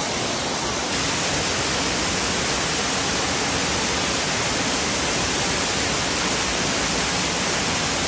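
Steady rush of a water curtain pouring off a grotto's overhang and splashing into a pond, a dense, even sound of falling water.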